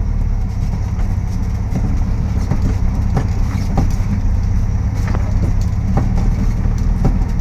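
Volkswagen Beetle on the move, its air-cooled flat-four running steadily, with irregular knocks from the front end: the ugly front-end noise that the car is in the shop to have fixed.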